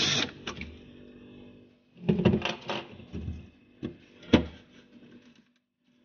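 Scattered clicks and knocks of hands working on a refrigerator's evaporator and its pipes, with one louder knock about four seconds in.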